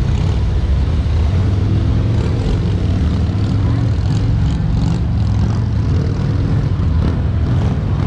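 Engines of several large touring motorcycles running at low revs as they crawl at walking pace: a steady low rumble with no revving.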